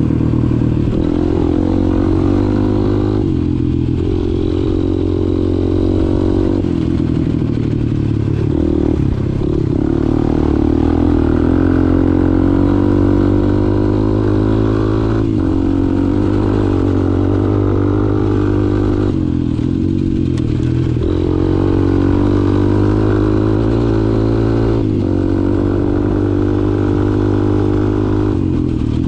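2002 Honda XR200's single-cylinder four-stroke engine running as the bike is ridden. Its note dips briefly and picks up again several times as the throttle is eased and reopened.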